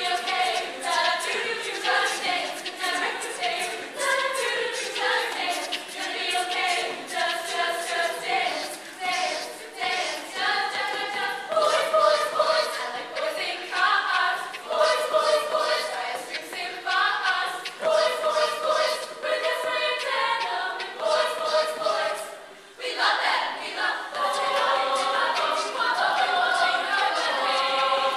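Female a cappella group singing in close harmony, with sharp rhythmic clicks running under the voices. The singing drops away briefly about three quarters through, then comes back as a fuller chord.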